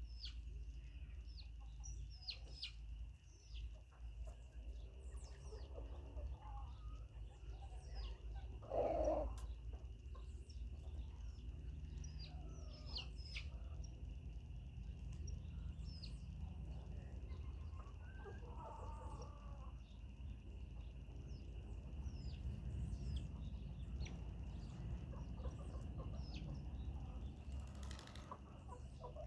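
Chickens clucking and calling, loudest about nine seconds in and again around eighteen seconds, over many short high chirps and a steady high whine.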